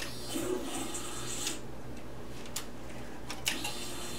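Ducati ST4 electric fuel pump priming as the ignition key is cycled: clicks from the key switch and relay, then the pump whirring for about a second, twice.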